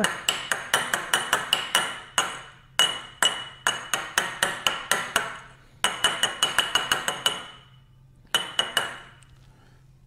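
A graduated cylinder of dry sediment rapidly tapped against the lab benchtop, about five or six knocks a second, each with a short glassy ring. It comes in four runs, the last one brief. The tapping packs the loose, disturbed sample down to bring its grains closer together.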